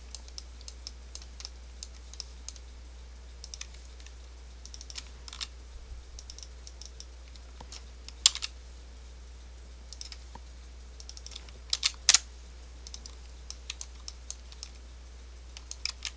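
Irregular clicks and clacks of a computer keyboard and mouse, a few louder keystrokes about eight and twelve seconds in, over a low steady hum.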